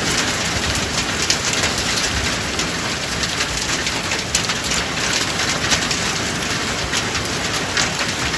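Steady rain falling, with many separate drops pattering sharply on hard surfaces.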